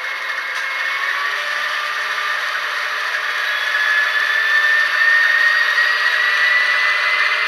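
ESU sound decoder in an HO-scale BR 232 'Ludmilla' diesel model, playing its locomotive sound through the model's small speaker. The sound is a thin, steady mechanical rushing with a whine that rises slowly in pitch and grows louder toward the end.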